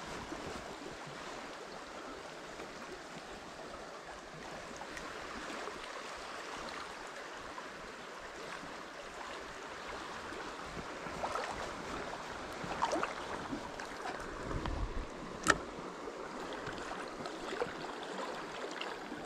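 Fast-flowing river water rushing steadily, with a few small clicks and knocks in the second half and one sharp click about three quarters of the way through.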